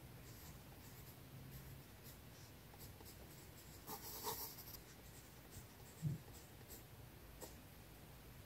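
Graphite pencil writing on sketchbook paper: short, faint scratching strokes, with a louder run of scratches about four seconds in. A soft low thump comes about six seconds in.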